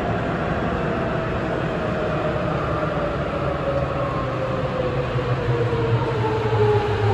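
Sapporo Tozai Line 8000-series rubber-tyred subway car running, heard from inside the car, with the Mitsubishi VVVF inverter and traction motor whine slowly falling in pitch as the train slows. This car's inverter sound has been updated to match that of the 8813 set.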